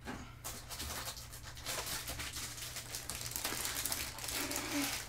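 Clear plastic bag holding Gunpla model-kit runners crinkling and rustling as it is handled, with small clicks and rubs of plastic.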